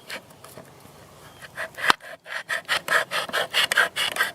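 Mora knife blade sawing and scraping through the lid of a metal tin can, used in place of a tin opener. A sharp click about two seconds in, then quick rasping strokes, about four or five a second.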